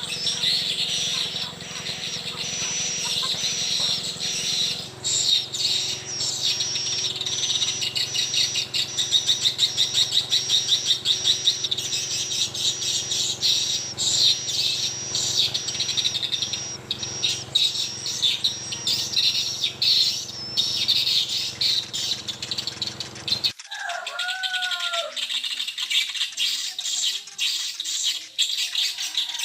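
Dense, rapid high-pitched bird chirping over a steady low hum. Both cut off abruptly about 23 seconds in, after which a few lower, gliding bird calls are heard.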